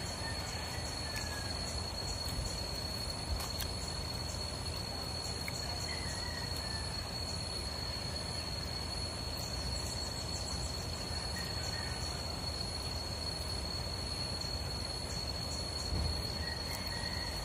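Insects trilling steadily in one continuous high-pitched tone over a low background rumble, with a few faint short chirps.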